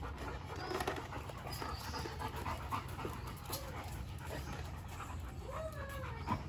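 Dogs panting, with a short rising-and-falling whine about five and a half seconds in.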